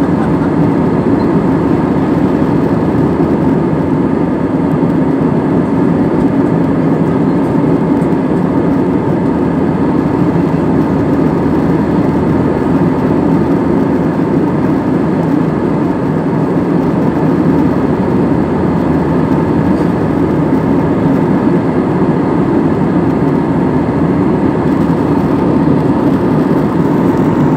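Steady cabin noise of a jet airliner in cruise: a constant drone of the engines and rushing airflow, heard from a window seat by the wing.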